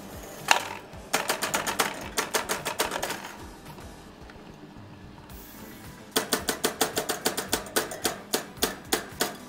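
Rapid tapping of a plastic blister bar mould full of chocolate against the stainless wire grid of a chocolate enrobing machine, knocking out the excess to leave a thin chocolate shell. One sharp knock comes first, then two runs of fast taps, about nine a second, with a pause of a few seconds between them.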